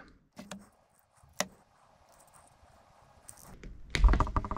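Short sharp clicks of wire strippers cutting and pulling insulation off the ends of a three-core mains cable's conductors. Near the end comes a louder knock with a brief pitched sound.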